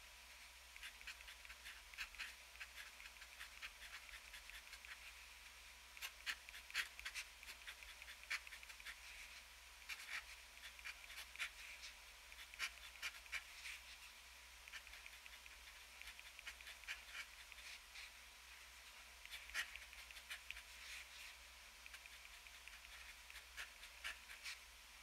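TWSBI ECO fountain pen with an extra-fine steel nib scratching faintly across paper, writing Japanese characters in quick short strokes that come in clusters with a few brief pauses.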